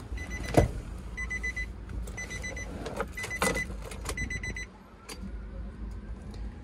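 A Nissan Grand Livina's dashboard warning chime beeping, high and electronic, in short rapid groups about once a second; it stops shortly before five seconds in. A loud thump comes about half a second in and a lighter knock near three and a half seconds.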